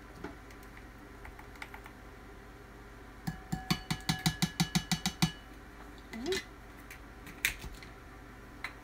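A measuring spoon tapped quickly against the rim of a glass bowl: about a dozen ringing clinks over two seconds, knocking seasoning mix off the spoon. A few lighter single knocks follow.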